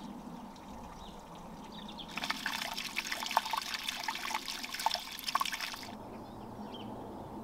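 A small trickle of running water, splashing in quick irregular drops. It starts about two seconds in and stops sharply near six seconds. Faint bird chirps sound before and after it.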